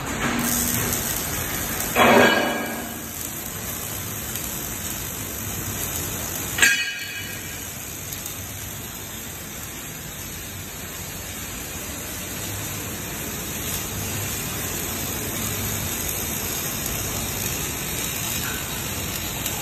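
Robotic MIG welding arc on a square tube: a steady hiss, with two brief louder bursts about two and seven seconds in.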